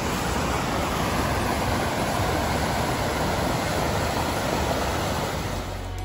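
Steady rush of a fast-flowing creek running high after rain, easing off slightly just before the end.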